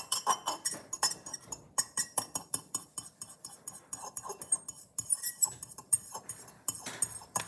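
Metal utensil beating eggs in a bowl: a quick, steady run of clinks against the bowl, about six a second, with a couple of brief pauses.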